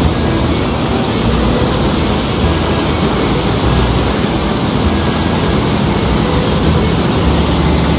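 Water gushing from an outlet into a channel, churning at the surface with a loud, steady rush.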